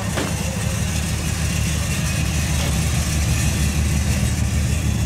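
Motor vehicle engines running at low speed in a slow line of cruising cars: a steady low rumble that grows slightly louder toward the end.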